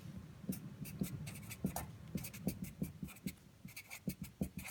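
Felt-tip marker writing on paper: a quick, irregular run of short scratching strokes as numbers are written.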